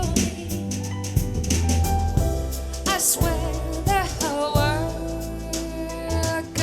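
Soul-jazz song played back through in-ear monitors: a sung melody with vibrato over bass guitar and drum kit.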